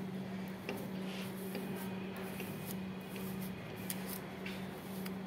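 A comb and hand working through long hair, making faint, scattered scratchy rustles and small clicks over a steady low hum.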